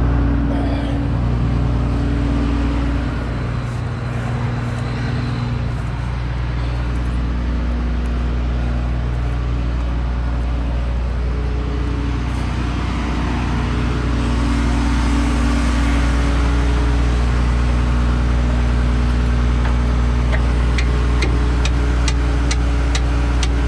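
Case 2144 combine's diesel engine idling with a steady low hum. A quick run of sharp clicks sounds near the end.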